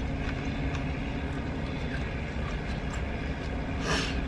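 Steady low rumble of vehicle traffic heard from inside a parked car, with faint crunching of tortilla chips being chewed. A short noisy burst comes just before the end.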